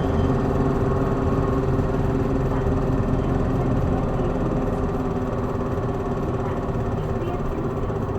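Hino Blue Ribbon city bus's diesel engine running under way, heard from inside the passenger cabin: a steady engine drone with road noise, easing slightly about halfway through.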